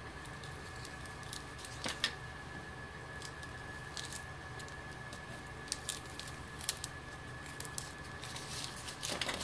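Strips of low-tack tape being peeled off paper and a thin metal die: faint rustling and light crackles, with a few sharper clicks and taps, one about two seconds in and another near the end.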